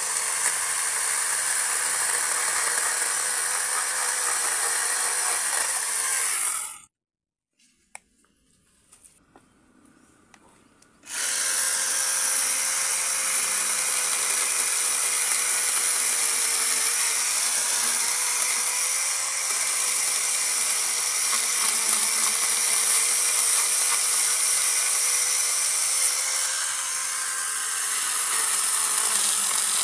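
Kamolee 8-inch brushless mini chainsaw running with a steady whine as it cuts bamboo. It stops about seven seconds in, leaving a few seconds of near silence with a couple of faint clicks, then starts again about eleven seconds in and runs on.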